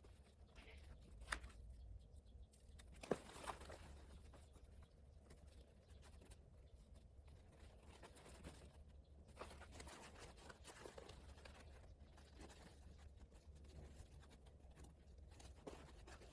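Faint handling of nylon backpack straps being unfastened: quiet rustling of webbing and fabric, with two sharp clicks about one and three seconds in, over a low steady hum.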